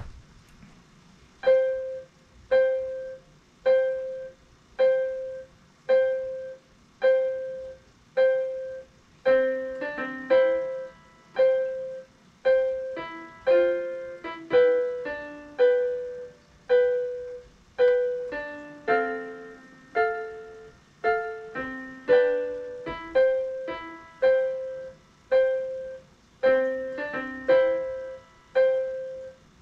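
Portable electronic keyboard on a piano voice, played slowly by a beginner: single notes about one a second, each left to ring and fade. Lower left-hand notes join from about ten seconds in.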